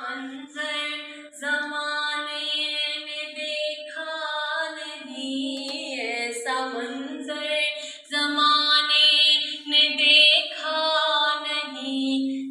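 Background music: a woman singing a slow melody with long held notes.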